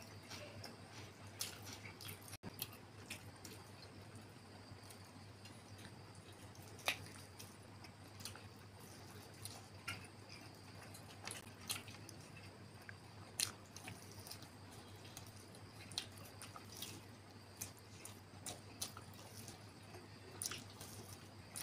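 Close chewing and biting while eating a fried chicken lollipop: irregular short clicks and mouth smacks, over a faint steady low hum.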